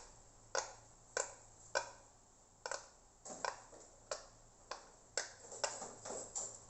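Fidget toy being clicked repeatedly: about a dozen sharp clicks at uneven intervals, roughly two a second.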